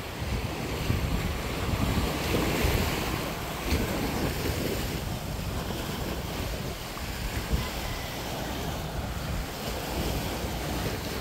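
Small sea waves washing onto a sandy, rocky shore, with wind rumbling on the microphone.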